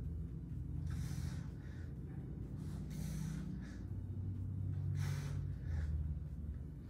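A man breathing hard from exertion during floor ab exercises: short, sharp breaths in and out about once a second.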